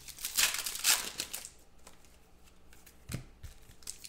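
Trading cards and plastic card holders being handled: rustling and scraping through the first second or so, then quieter, with one soft knock about three seconds in.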